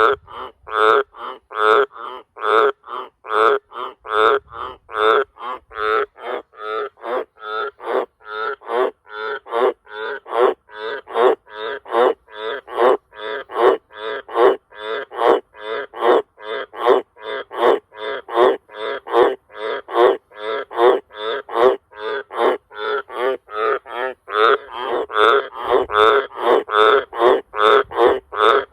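Australian green tree frog (Litoria caerulea) calling: a steady run of short, very loud croaks, about two a second.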